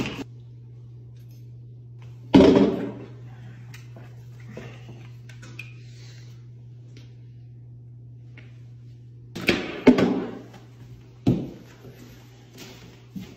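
Knocks and thuds from plastic mannequin parts and a cardboard box being handled over a steady low hum: one loud thud about two seconds in, a cluster of knocks near ten seconds and another a second later.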